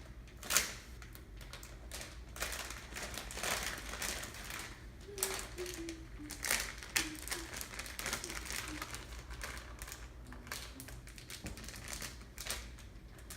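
Plastic packaging crinkling and crackling in irregular bursts as a squishy toy is pulled out of it.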